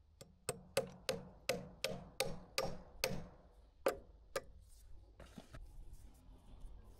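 All-steel framing hammer driving a nail into wooden framing lumber: about eleven sharp strikes at two to three a second, stopping about four and a half seconds in, followed by faint handling noise.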